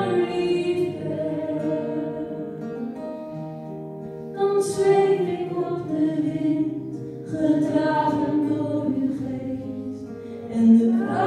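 Choir singing a Dutch hymn in long held phrases, with a new phrase starting every three seconds or so.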